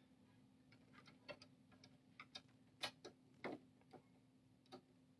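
Near silence broken by faint, irregular clicks and taps of plastic Lego bricks being handled and set in place, about ten over a few seconds, over a faint steady hum.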